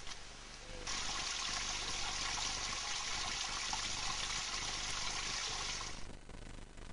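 Small cascade of water splashing into a rocky pool: a steady rushing hiss that starts abruptly about a second in and stops suddenly near the end.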